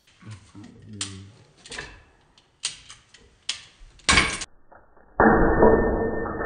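Sharp cracks and knocks as a 3D-printed PLA test piece snaps under a strap's pull. From about five seconds in comes a loud, muffled, slowed-down replay of the break.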